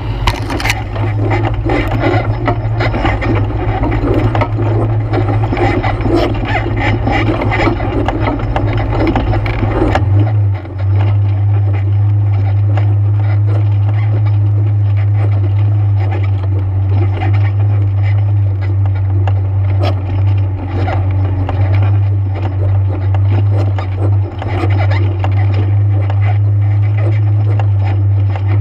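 ATV engine running steadily under way on a trail. About ten seconds in, the deepest rumble drops away while the engine note holds steady.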